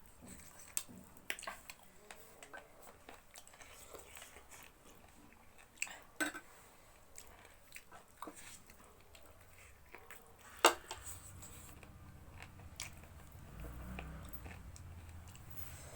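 Close-up eating sounds: chewing and biting, with scattered small clicks, the sharpest about two-thirds of the way through.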